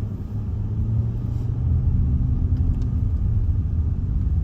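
Car heard from inside the cabin driving on a narrow lane: a steady low rumble of engine and tyres that grows a little louder about a second in as the car moves off past the van.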